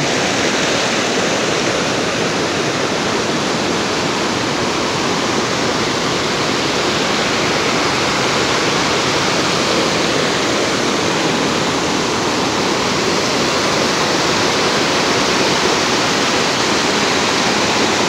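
Nantahala River water running over rocks and shallow rapids, a steady rushing.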